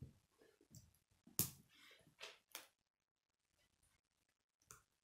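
K'nex plastic rods, gears and connectors clicking as they are handled and snapped together: a few short, sharp clicks, the loudest about one and a half seconds in, then a lull before one last click near the end.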